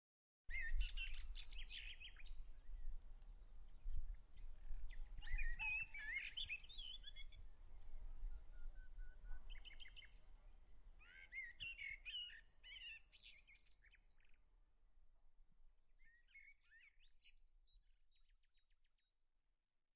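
Small birds chirping and twittering: short overlapping calls and trills that start suddenly about half a second in and fade away near the end, over a faint low rumble.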